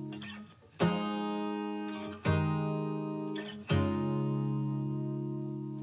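Background music: guitar strumming chords, one about every second and a half, each left to ring out and fade.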